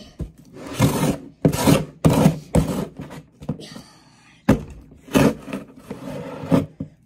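Scissors forced through a cardboard box in a string of uneven scraping, rubbing strokes as the blade struggles to cut through.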